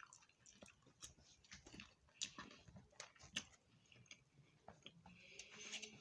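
Faint chewing with small wet mouth clicks, scattered through an otherwise quiet stretch.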